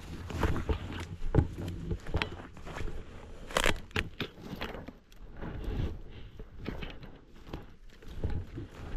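Footsteps crunching through leaf litter and twigs on a woodland floor, with irregular crackles and snaps; the sharpest snap comes about three and a half seconds in.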